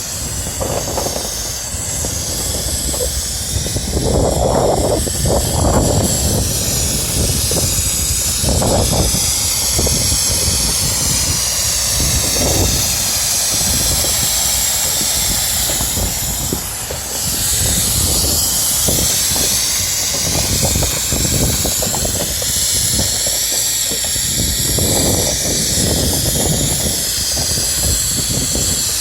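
Spray gun hissing steadily as silicone roof coating is sprayed onto the metal roof, over an uneven low rumble.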